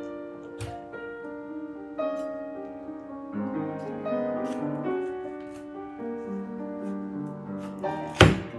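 Soft piano background music, with a few sharp knocks of a knife cutting through a pineapple. The loudest knock comes near the end.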